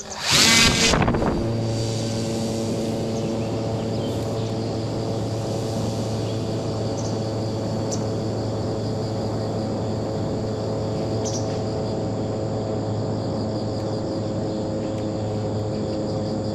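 Electric motor and propeller of a homemade FT Simple Cub radio-controlled airplane throttling up for takeoff, with a loud noisy burst in the first second or so, then running at a steady pitch in flight.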